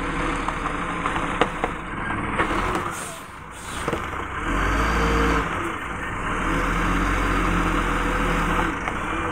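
Heavy diesel semi-truck engine running under load while reversing a loaded trailer. Its note rises and falls twice over a steady low rumble as the driver works the throttle.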